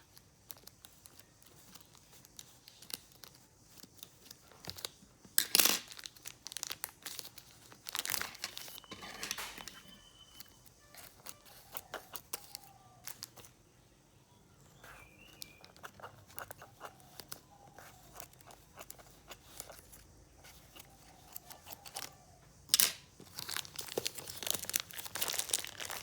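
Packaging being torn open and handled by hand: crinkling and tearing in scattered bursts with small clicks, loudest about five seconds in and again in a busy stretch near the end.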